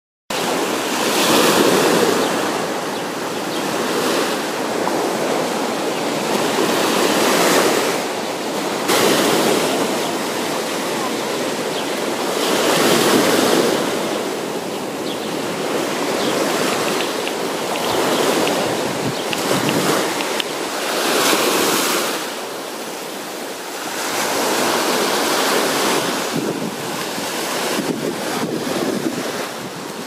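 Small Black Sea waves breaking and washing up on the beach. The surf swells and falls back every few seconds.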